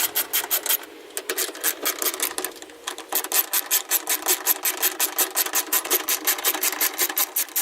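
Ratchet wrench clicking rapidly in a steady rhythm, about six clicks a second, as two 10mm bolts are backed out, with brief pauses between strokes.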